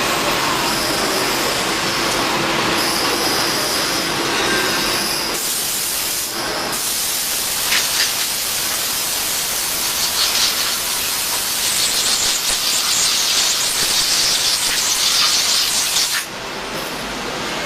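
XK7124 CNC milling machine running, a loud continuous hissing noise with a faint steady tone at first. The sound changes about five seconds in to a brighter, stronger hiss and drops back about a second before the end.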